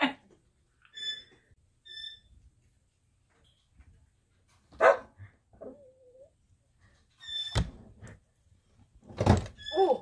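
A dog jumping up against a window with a sharp thump, among dog barks and a few short high-pitched chirps.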